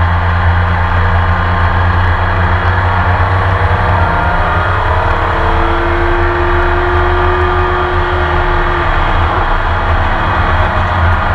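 Race car engine heard from onboard, running steadily. A fainter tone glides up and back down in pitch through the middle.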